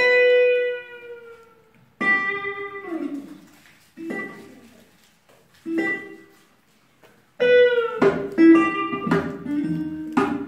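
Live acoustic band playing: guitars open with sparse plucked chords, each left to ring and fade, with pauses between. About seven seconds in the full band comes in, with continuous guitar playing over a bass line.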